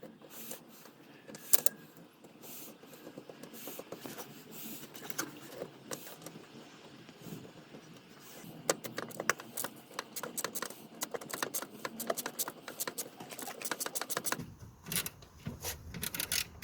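A 10 mm bolt being fitted and tightened, with small metal clicks and scrapes. About halfway through comes a run of rapid clicks from a socket ratchet.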